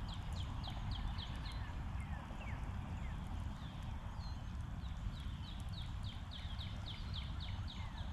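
A songbird singing rapid series of short, down-slurred chirps, about five a second: one series at the start and a longer one from about four seconds in, over a steady low rumble.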